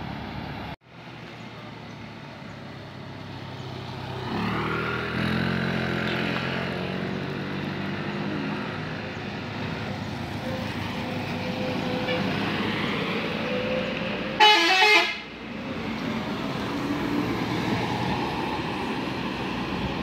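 A bus engine pulling on the grade, then a short, loud burst of a multi-tone 'telolet basuri' musical bus horn, its tones warbling rapidly, about three-quarters of the way through.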